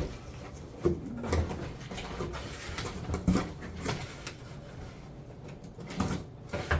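Cardboard box and packing material being opened and handled: steady rustling with scattered soft knocks and scrapes.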